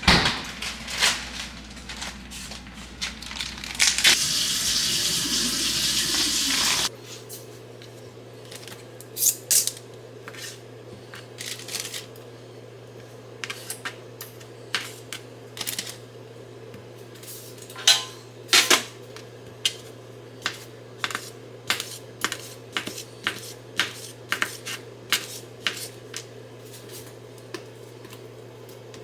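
Kitchen prep clatter: dishes and utensils clinking and knocking, with a loud hiss like a running tap for about three seconds that cuts off suddenly. After that, a steady low hum lies under a string of separate sharp clicks and knocks.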